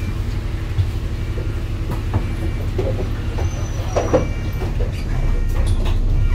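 Bus running along the road, heard from inside the passenger cabin: a steady low rumble of engine and tyres with interior rattles and a few knocks, the loudest about four seconds in.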